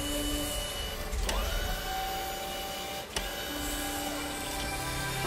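Mechanical whirring and motor-like sound effects for an animated gear-and-lever arm, with sharp clicks about a second in and again about three seconds in, and a short rising whine after the first click.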